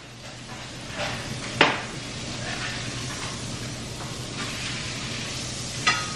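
Steak frying in a pan: a steady sizzle, with a few sharp clinks of utensils or cookware, the loudest about one and a half seconds in.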